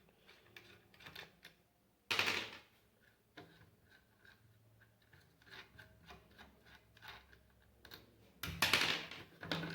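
Wrench and loosened screws clicking and tapping against the metal housing of a car radiator cooling fan as its screws are removed, with two louder, longer clatters, one about two seconds in and one near the end.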